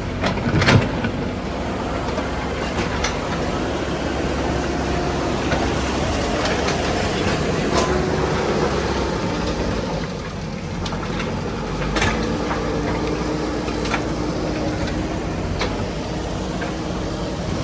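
A road-construction machine's engine running steadily, with scattered knocks and clatter over the drone.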